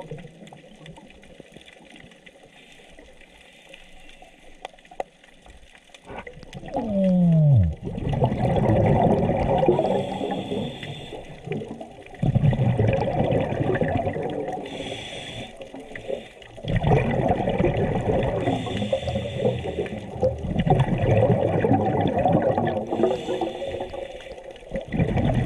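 A scuba diver's exhaled bubbles bursting from the regulator underwater. After a quieter first few seconds, there are several long bubbling exhalations with short breaks between breaths.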